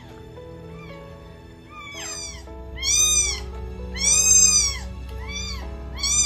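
A very young kitten meowing over and over in high, thin arched cries, faint at first and louder from about two seconds in, the longest and loudest just after four seconds. These are hunger cries; the carer hears the kitten as hungry.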